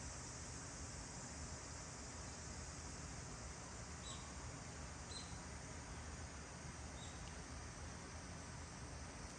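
Steady faint hiss of background noise, with three brief, faint, high squeaks about four, five and seven seconds in.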